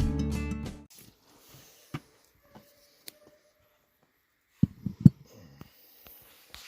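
Guitar music cuts off about a second in, followed by scattered light clicks and clinks, with a quick run of louder knocks about two-thirds of the way through.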